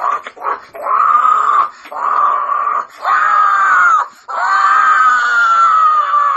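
Monster screeches for a crate-creature puppet: four shrieks of about a second each, then a longer screech that slowly falls in pitch and cuts off near the end.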